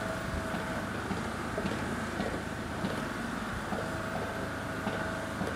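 Steady outdoor city background of traffic and engine hum, with a thin held whine that sounds briefly at the start and again around four seconds in.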